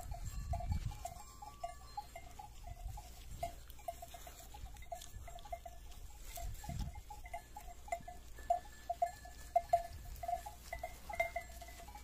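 Bells on a grazing flock clinking irregularly at a steady pitch, with a low rumble now and then.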